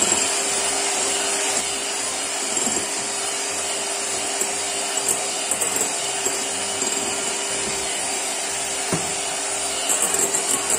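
Electric hand mixer running steadily at medium-high speed, its beaters whipping egg whites into a stiff meringue as sugar goes in; the motor whir turns slightly rattly near the end.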